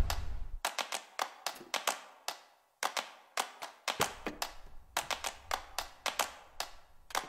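A run of sharp claps or clicks, roughly three a second and unevenly spaced, from a percussive advert soundtrack. A car engine's low rumble cuts off about half a second in, and a faint low hum comes in about four seconds in.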